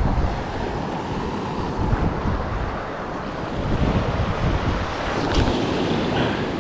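Wind buffeting the microphone over waves washing against a rocky shoreline. A short knock comes about five seconds in.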